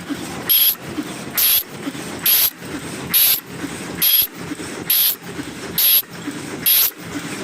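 Paper cup making machine running in a steady cycle: a continuous low mechanical clatter with a short, loud hiss about every 0.85 s, some eight cycles in all.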